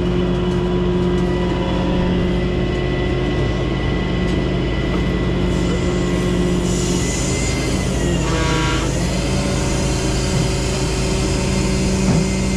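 Rollback tow truck's engine and hydraulics running steadily while the bed and winch controls are worked, a constant hum with a thin high whine. A brief squeal comes about eight seconds in.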